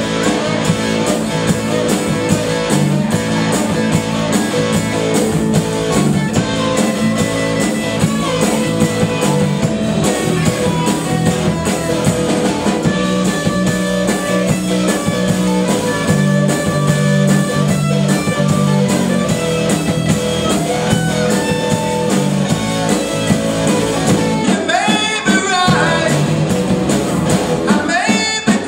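Rock band playing a guitar-led passage, electric guitar over a steady low bass line. About 25 seconds in there is a short break with sliding notes before the full band comes back.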